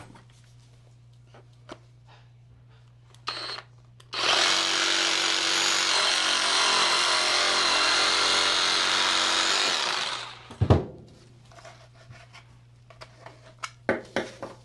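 Power tool, drill-like, given a brief squeeze of the trigger, then run steadily for about six seconds before stopping, followed by a single knock and some small clicks.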